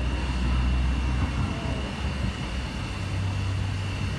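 Steam locomotive moving slowly tender-first: a steady low rumble with a thin, steady high whine above it.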